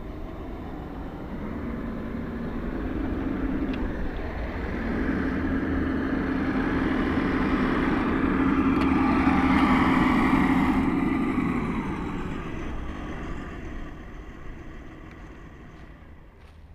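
Self-built 1:8 scale RC John Deere 9560R tractor driving past close by: a steady mechanical whine and hum of its drive that grows louder as it approaches, peaks about two-thirds of the way in, then fades as it moves away.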